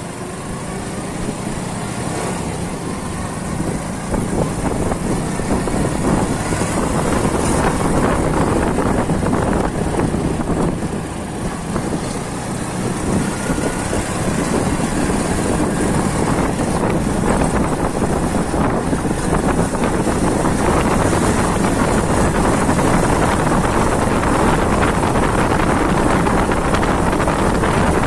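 Small motorcycle's engine running while riding along a road, with wind rushing over the microphone; it grows a little louder about four seconds in.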